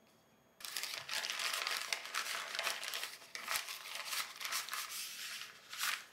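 Plastic postal mailer bag crinkling and rustling as it is handled, opened and its contents pulled out, starting about half a second in.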